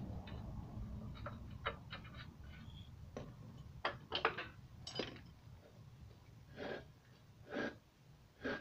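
Faint, scattered clicks and light metal knocks as the clutch alignment tool is worked into the clutch on the flywheel of the removed diesel engine. Near the end come a few soft, short rasping sounds about a second apart.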